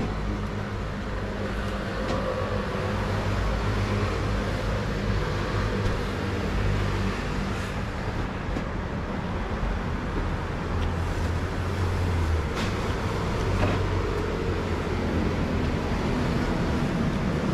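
Street traffic going by: car engines and road noise rising and falling steadily, with a few light clicks.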